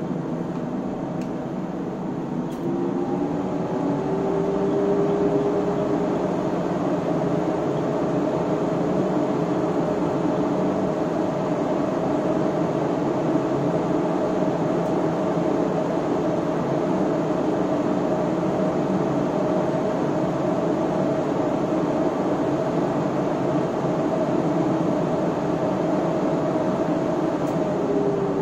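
Elgar SW3500A unit running: a steady whirring machine noise with a hum. About three seconds in the noise gets louder and the hum rises in pitch, then holds steady.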